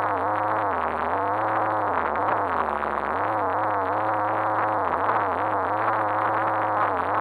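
RC car's motor whining from an onboard camera, its pitch repeatedly rising and dipping as the throttle changes. The sound is muffled by the camera's fully sealed housing.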